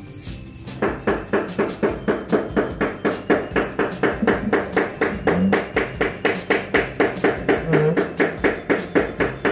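Rapid, even knocking, about four to five knocks a second, starting about a second in.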